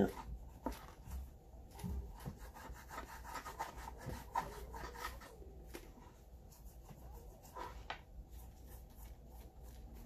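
Wool dauber rubbing leather dye into a leather case in faint, uneven strokes, with a few light knocks of the leather on the wooden board.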